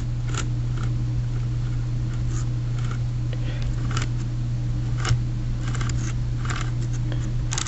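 Corded drill's electric motor running steadily with its gearbox open, the re-seated gears turning and meshing: a low hum with scattered light clicks. It is the sound of a repaired drill working as it should, the gears back in place.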